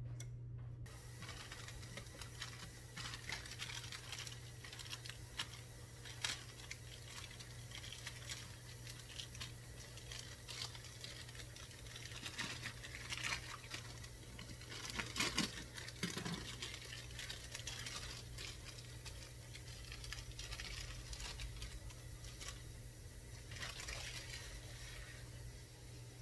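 Rustling and crinkling of wrapping, with irregular small clicks and light knocks, as pie crust is unwrapped and handled; busiest about halfway through. A steady low hum runs underneath.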